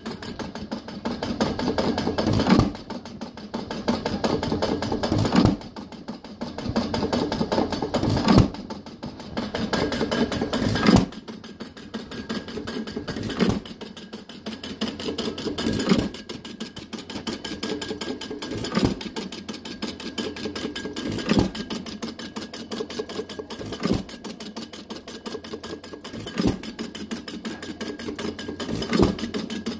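Fuller & Johnson 1½ hp hit-and-miss engine running, firing about every two and a half to three seconds, with fast clicking between the firings as the flywheels coast.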